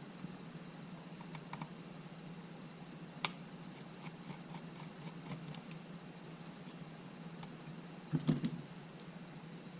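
Light scattered clicks and taps of small camera parts and tools being handled, with a sharper click about three seconds in and a louder cluster of clicks after about eight seconds, over a low steady hum.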